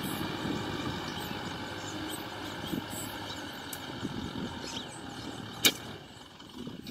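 Kubota M6040SU tractor's diesel engine running steadily as it pulls a plough through the soil, growing fainter as the tractor moves away. A single sharp click about two-thirds of the way through.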